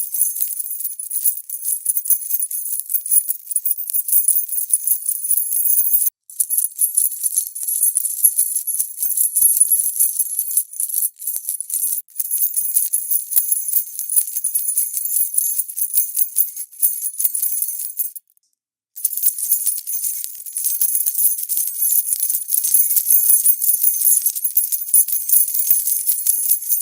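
A bunch of metal keys jangling and jingling continuously, a soft but very spiky, high-pitched sound, with brief breaks about six, twelve and eighteen seconds in.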